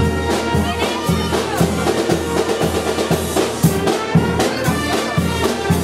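A live brass-and-drum band playing a march, with trumpets carrying the tune over a steady drum beat.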